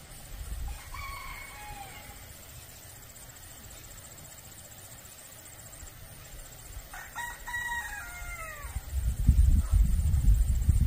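A rooster crowing twice, a short crow about a second in and a longer, multi-part cock-a-doodle-doo near the end, both falling in pitch at the close. A loud low rumble sets in just before the end.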